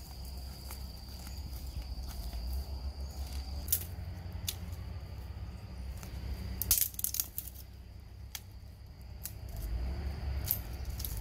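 A steady high-pitched insect drone, with scattered snaps and crackles of dry twigs and leaf litter as someone moves through undergrowth with a stick; the loudest cluster of crackles comes a little past the middle.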